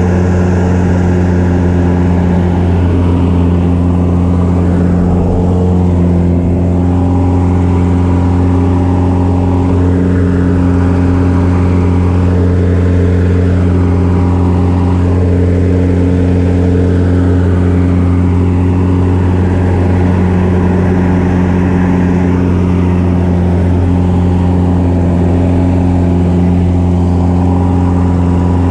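Single-engine light aerobatic plane's piston engine and propeller running hard, heard from inside the cockpit during aerobatic manoeuvres. The drone is steady throughout, with slight rises and falls in pitch as the plane rolls and turns inverted.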